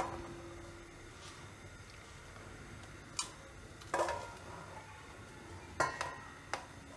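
A stainless steel sieve clinking in a steel plate: a few light metallic knocks, a short ring after some, as a bowl of gram flour is tipped into it for sifting.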